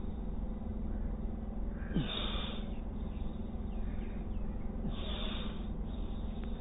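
Two forceful breaths, about three seconds apart, taken with standing yoga stretches as bhastrika-style bellows breathing, over a steady low hum.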